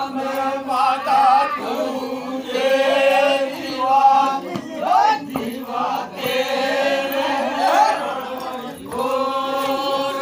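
A group of voices singing a Vagadi Bhil folk song (geet) together, chant-like, in long drawn-out phrases with sliding held notes and no drums.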